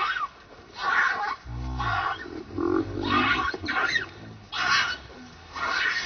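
Baby macaque screaming in short, shrill shrieks, about one a second, as an adult monkey drags it over the ground by its tail.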